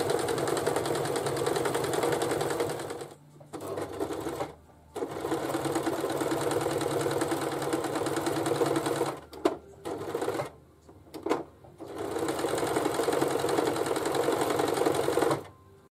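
Brother XL-4010 sewing machine stitching in runs of a few seconds, stopping and restarting several times with a few short bursts in between, and cutting off near the end.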